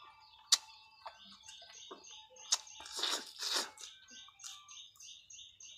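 Close-up chewing of crunchy raw fruit, with a few sharp clicks and a louder spell of crunching about three seconds in. A rapid, repeated high chirping runs underneath.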